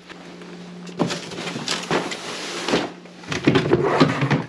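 Footsteps and rustling handling noise as someone walks through the house carrying the recording phone. Several sharp knocks and scuffs rise over a scratchy rustle, and they come faster near the end.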